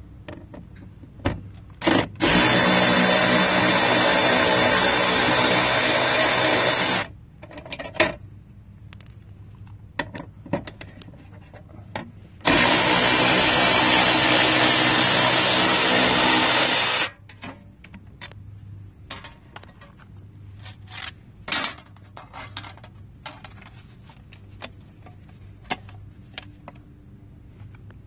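Milwaukee M12 FUEL brushless 3/8-in. cordless ratchet running in two runs of about five seconds each, backing out the screws that hold a car's licence plate. Small clicks and knocks of handling come between the runs and after them.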